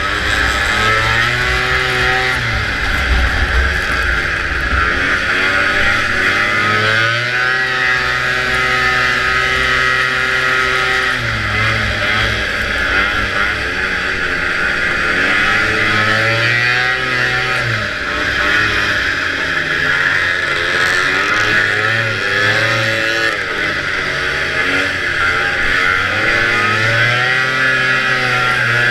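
Vintage racing snowmobile's two-stroke engine running hard. Its pitch holds steady for stretches and repeatedly dips and climbs again as the throttle is eased and reopened, over a steady high hiss.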